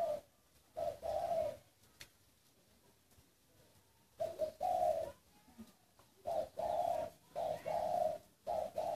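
Caged dove cooing in repeated phrases: a couple of coos in the first second and a half, a pause of a few seconds, then coo after coo through the second half.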